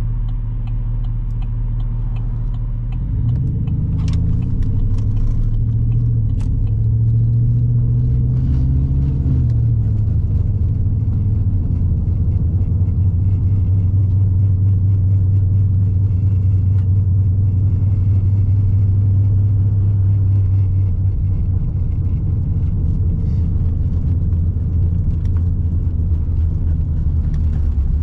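Chevrolet Silverado 2500HD's 6.0-litre Vortec V8 with an aftermarket exhaust, driving. It runs steadily at first, then from about three seconds in its pitch climbs under acceleration, dipping once briefly, before dropping back to a steady cruising drone.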